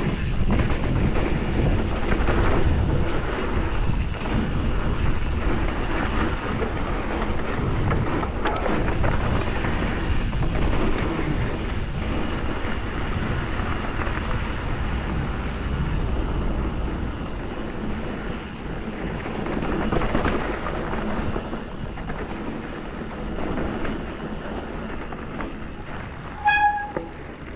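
Hardtail mountain bike rolling fast down a dry dirt trail: tyre roar and drivetrain rattle mixed with wind buffeting on the chest-mounted camera, easing off toward the end as the bike slows. Near the end, a brief high squeal.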